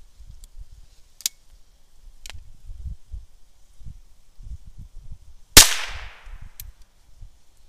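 A few sharp clicks of a small rifle being handled and readied, then a single loud, sharp rifle shot about five and a half seconds in that rings off briefly. The rifle is being fired at a tin-can target.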